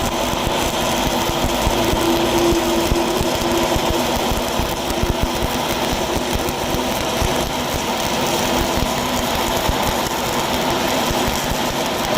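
Stick-welding arc crackling steadily as a 7018 electrode lays a cap pass, over a steady machine hum.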